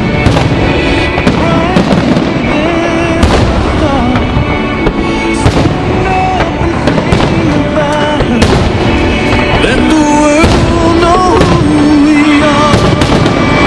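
Aerial fireworks shells bursting, sharp bangs at irregular intervals every second or two, over loud music with a melody.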